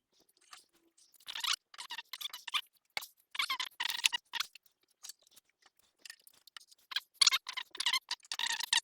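Wood lathe's stand scraping and squeaking across the floor in irregular bursts as the heavy machine is angled into place.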